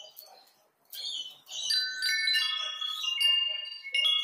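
Chiming bell-like music: after a few short faint rustles, ringing notes at several pitches start one after another about a second and a half in and sustain, overlapping.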